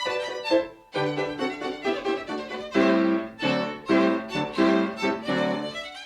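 Violin playing a brisk, bouncy melody of short, separated notes.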